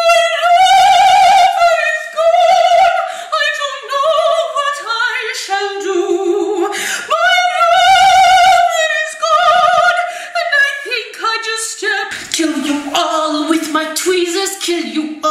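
A woman singing without accompaniment in a mock-operatic aria style, holding long high notes with wide vibrato. About eleven seconds in, the singing drops lower and turns quicker, with shorter notes.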